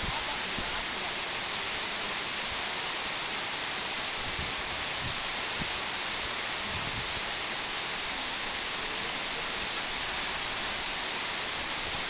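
Waterfall: water plunging down a tall rock face and breaking into spray, a steady, even rushing hiss.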